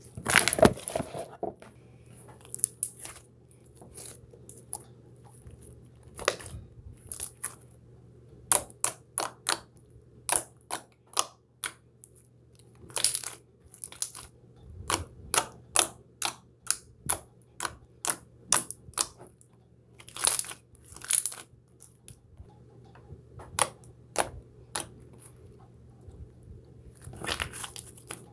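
Slime being squeezed, stretched and pressed by hand, giving a string of irregular sharp pops and clicks. The loudest cluster of crackling comes right at the start.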